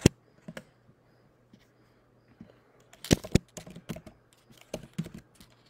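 Laptop keyboard being typed on in irregular keystrokes: two sharp clicks at the start, a lull of about two seconds, then a louder cluster of keystrokes about three seconds in and scattered taps after it.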